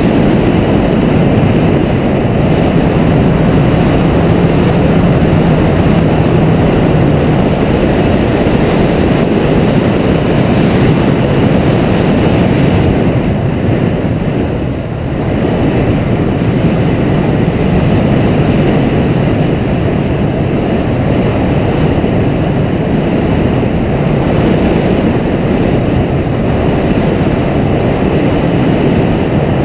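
Rushing airflow of hang-glider flight buffeting the microphone: loud, steady wind noise, easing briefly about halfway through.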